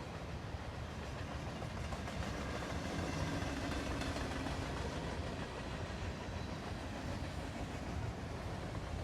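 Freight train cars rolling past on the rails, a steady low noise of wheels and cars that holds without a break.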